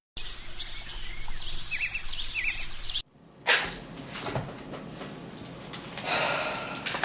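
A few short bird chirps over a steady low hum. About three seconds in the sound cuts, then comes a sharp click and the rustling and tapping of notebooks and papers being handled on a cloth-covered table.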